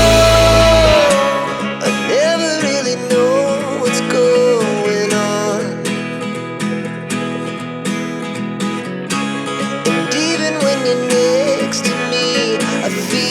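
Background song: a full band with heavy bass, which drops about a second in to a lighter arrangement with plucked guitar under a gliding melody line.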